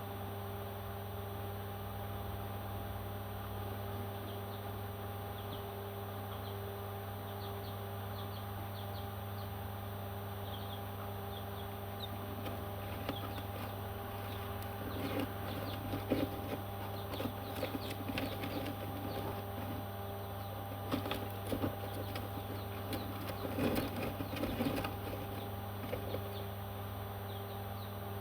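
Baby parrots giving soft, faint chirps over a steady machine hum. About halfway through come louder irregular bursts of rustling and clicks, strongest near the end.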